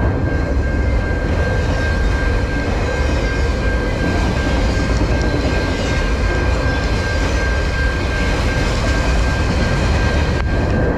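Freight train of autorack cars rolling past close by: a steady rumble of steel wheels on the rails, with a steady high whine over it.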